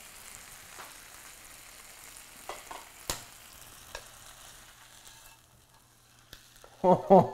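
Chicken breast sizzling in a hot frying pan, with a few sharp clinks of metal tongs against the pan. The sizzle fades out about five seconds in.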